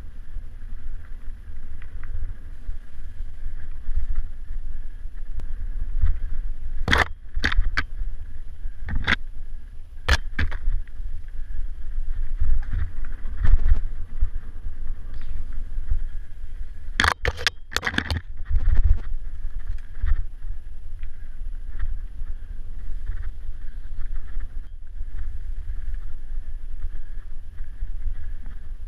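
Mountain bike ridden fast down a forest dirt trail, heard from a bike-mounted camera: a steady low rumble of wind and vibration on the microphone under the tyres' rolling noise, with sharp knocks and rattles as the bike hits bumps and roots. A few of these come about a quarter of the way in and a quick cluster a little past the middle.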